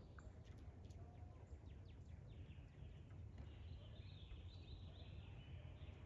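Faint songbird chirps and trills over a quiet outdoor background, busiest in the second half.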